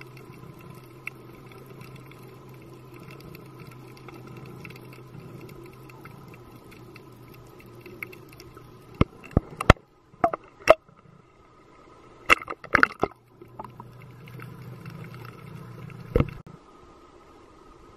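Underwater ambience picked up through a camera's waterproof housing: a steady low hum with faint high tones. About nine to thirteen seconds in, a cluster of sharp clicks and knocks breaks in, then a single knock comes a few seconds later.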